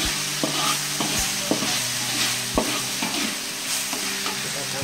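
Spatula stirring and scraping a chili spice paste sautéing in oil in a wok, with a steady sizzle. The spatula knocks sharply against the pan a few times, loudest about a second in and again a little past halfway.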